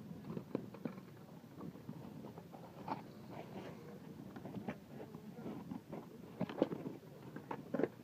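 Irregular light knocks and taps, several each second, some louder than others, over a low background haze.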